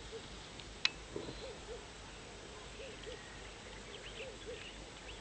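A bird cooing faintly in the background: soft hoot-like notes in groups of two or three, repeating about every second and a half, with one sharp click about a second in.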